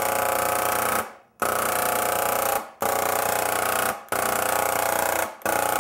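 Handheld electric airless sprayer's pump buzzing as it sprays water, switched on and off by the trigger in about five bursts of roughly a second each with short breaks between.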